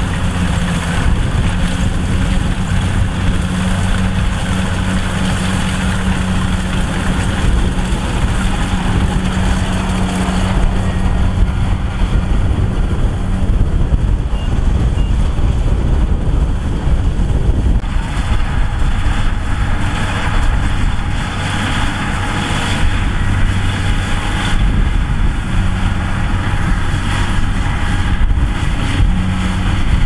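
Kubota DC108X combine harvester's diesel engine running steadily with a low, even hum.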